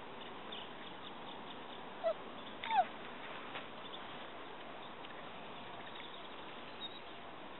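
Gordon setter giving two short whines that fall in pitch, about two seconds in, over a steady background hiss.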